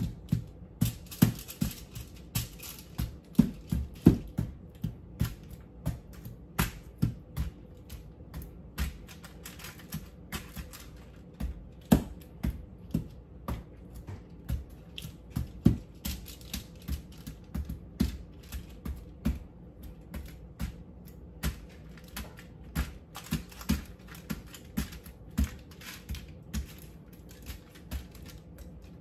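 Potatoes being handled on a metal baking pan and sheets of aluminium foil: irregular sharp clicks and taps, a few a second, with short stretches of crinkly rustle.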